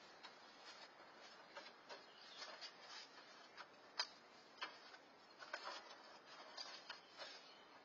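Faint, irregular rustling and clicking of a black plastic bag being handled, with the sharpest click about four seconds in.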